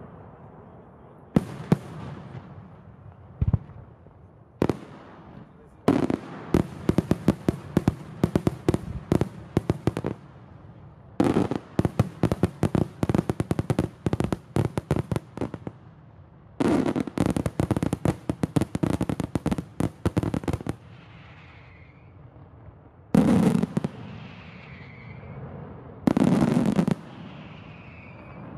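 Daytime fireworks display: a couple of single bangs, then three long salvos of rapid, loud firecracker reports, each lasting about four seconds, and two heavier single bangs near the end.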